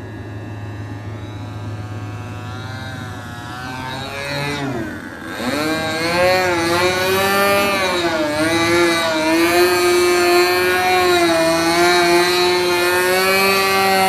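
Radio-controlled aerobatic model airplane's engine and propeller in flight, the pitch rising and falling with throttle and manoeuvres. It dips briefly about five seconds in, then grows much louder as the plane comes close.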